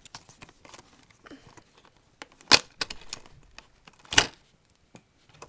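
Cardboard earphone box being handled and pried open by hand: scattered light scrapes and clicks, with two loud sharp sounds about two and a half and four seconds in.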